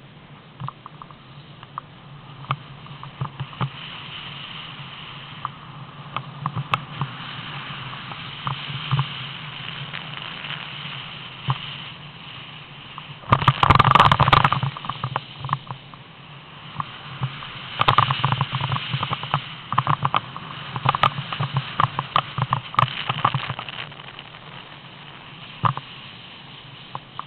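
A snowboard sliding and scraping over packed snow, mixed with crackling handling and wind noise on the hand-held camera's microphone, with a loud scraping rush about halfway through.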